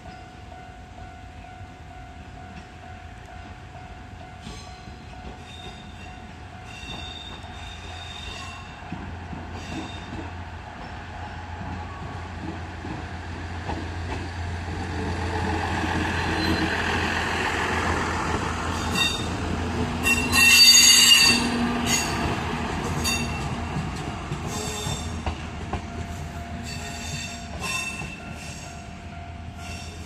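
Diesel railcar train approaching and passing close by, its engine and running gear rising to a loud rumble about halfway through. Wheels squeal and click sharply as it goes past, loudest about two-thirds of the way in, then fade as it pulls away.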